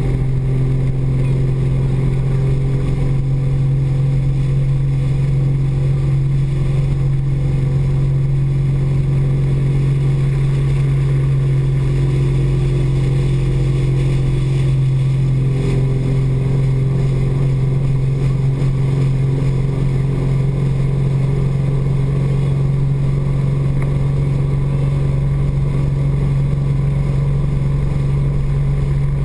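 Speedboat engine running steadily at speed, a constant low drone that holds the same pitch throughout.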